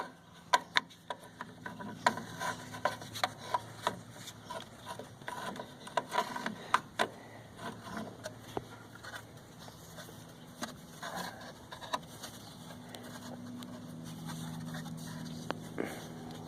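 Irregular light knocks, clicks and scrapes, as of things being handled and rubbed against each other, with a faint steady low hum coming in near the end.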